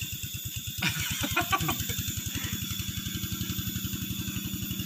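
Motorcycle engine idling with a steady, even beat.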